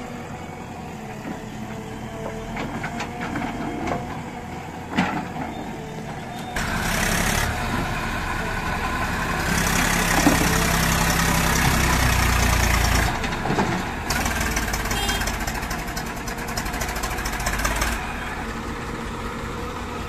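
Diesel engines of a backhoe loader and a farm tractor running: a steady idle at first with a sharp knock about five seconds in, then much louder from about six seconds in as an engine revs, and a rapid diesel clatter later on.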